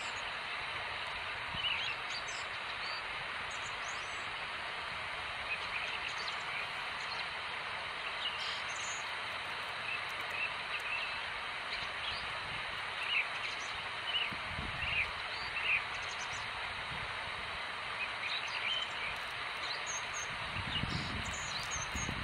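Outdoor ambience: a steady background hiss with brief bird chirps scattered throughout, and a few low thumps near the end.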